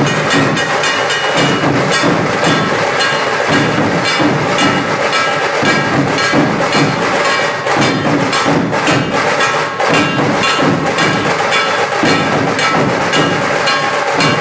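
Dhol tasha drum ensemble playing: big barrel dhols beaten under a fast, dense rattle of tasha drums in a loud, unbroken rhythm.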